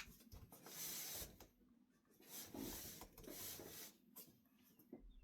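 Faint rubbing and rustling, in two stretches of about a second each, like something being handled.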